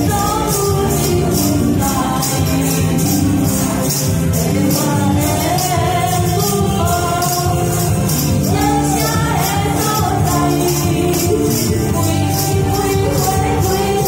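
A woman singing into a microphone over upbeat backing music, with several hand tambourines shaken and struck in time with the beat.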